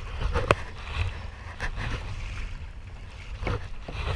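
Kayak paddling across choppy water: wind rumbling on the microphone over the wash of water around the hull, with a few sharp splashes and knocks as the paddle strokes. When he paddles, the GoPro's telescopic pole rustles inside the paddler's life jacket.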